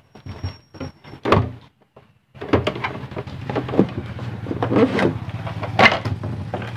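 Clicks, knocks and clatter of tools and parts being handled on a repair bench. A low steady hum joins about two and a half seconds in.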